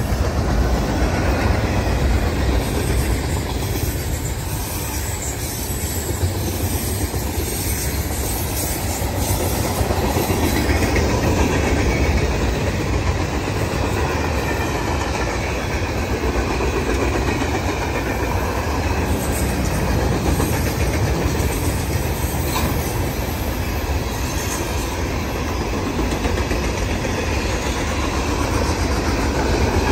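Freight train cars (covered hoppers and open hoppers) rolling past, their steel wheels running on the rails with a steady, loud rumble.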